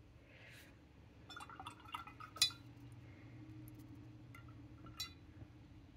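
Faint clinks and light taps of small objects being handled on a desk, with a sharper click about two and a half seconds in and another about five seconds in.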